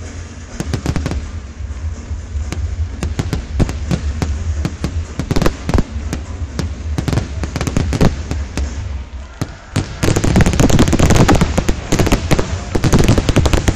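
Fireworks going off in a rapid series of bangs and crackles, building to a dense, louder volley about ten seconds in that stops shortly before the end.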